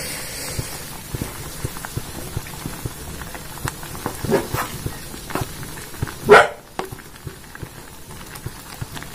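Noodles and vegetables bubbling in a pan of boiling broth while a wooden spatula stirs them, with many small ticks and scrapes. About six seconds in, one short, loud call stands out over the stirring.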